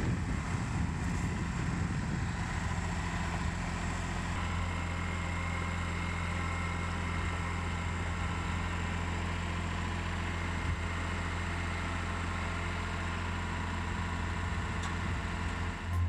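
Kubota L-series compact tractor's diesel engine running steadily with a low, even hum.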